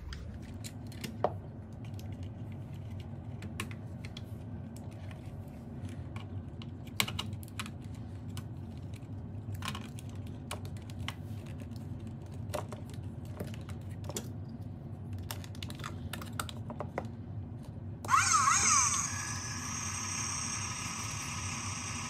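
Scattered plastic clicks and taps as a battery is fitted into a toy remote-control Formula 1 car and its hard plastic chassis is handled. About 18 seconds in, a loud warbling electronic sound starts and then carries on more quietly.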